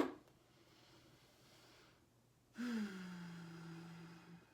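A woman's long, breathy sigh voiced on one steady low pitch, starting about halfway in and held for nearly two seconds, after a moment of faint breathing.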